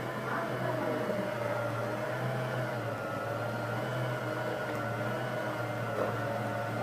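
Portable handheld washing machine's small electric motor running with a steady hum and whir, its pitch drifting slightly.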